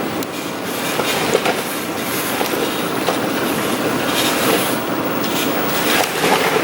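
Off-road truck crawling over a rocky trail: the engine runs under load among steady crunching and grinding, with frequent clacks and knocks of rock and metal.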